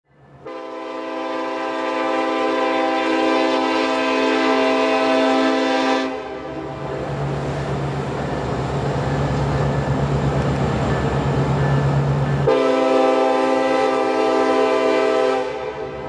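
Norfolk Southern diesel locomotive sounding a long horn blast, then its diesel engine running as it rolls along, then a second long horn blast about twelve seconds in.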